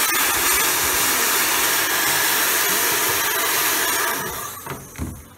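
Hand-held hair dryer blowing air onto a freshly etched magnesium plate to dry its surface, a steady rushing noise. About four seconds in it is switched off and the sound dies away, with a short knock just after.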